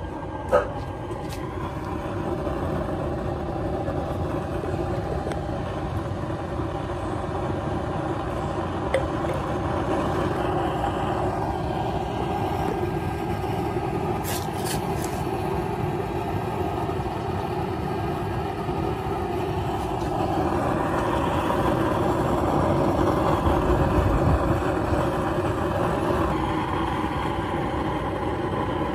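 Used-oil burner stove running, its flame and blower making a steady noise under a pot of boiling water. A sharp click comes about half a second in, and the noise grows a little louder about two-thirds of the way through.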